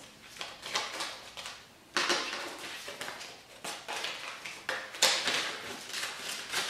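Paper banknotes and a paper envelope rustling and crinkling as cash is handled and slipped into the envelope, with sharper rustles about two seconds in and again about five seconds in.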